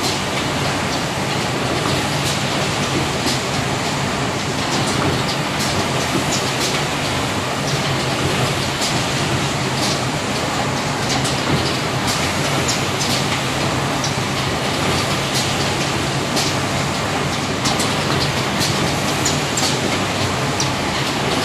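AJB540A automatic wine box making machine running: a steady mechanical clatter with frequent, irregular sharp clicks and clacks over a dense, even machinery noise.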